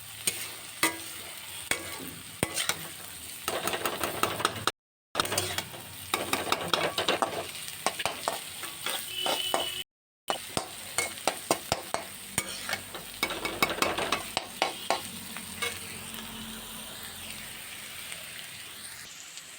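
Chopped beans, carrot and capsicum sizzling in hot oil in a pan while a spatula stirs them, with frequent scraping and knocking against the pan. The sizzle breaks off briefly twice.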